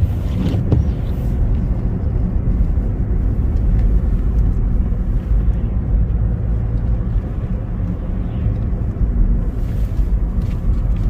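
Car interior noise while driving on a highway: a steady low rumble of engine and tyres on the road.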